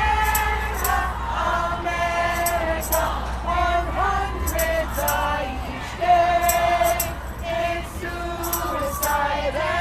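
A group of people singing a tune together in held notes, with short high jingling or tapping strokes through it.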